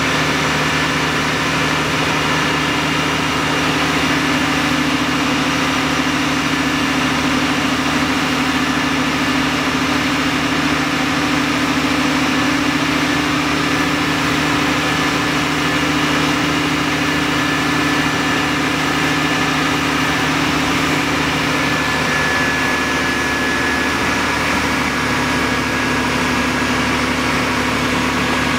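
Diesel engine of a Grove truck-mounted crane running steadily while it holds a roof section on its hook, its note shifting slightly about 22 seconds in.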